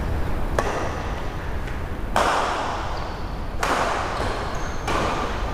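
Badminton rackets striking a shuttlecock in a rally: four sharp hits about a second and a half apart, each echoing briefly in the hall.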